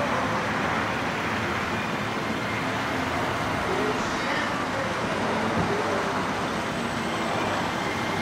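Steady, even rush of motor-vehicle noise with no distinct events.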